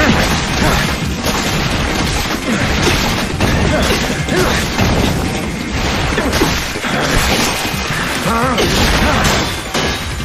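Anime fight-scene soundtrack: crashes and impacts over music, continuous and loud.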